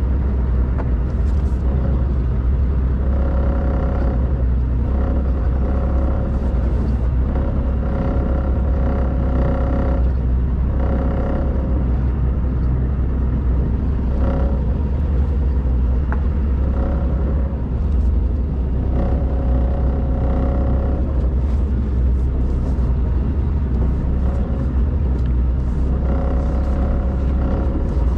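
Small pleasure boat's engine running steadily under way: a loud, low, even drone, with a higher engine tone that swells and fades every few seconds.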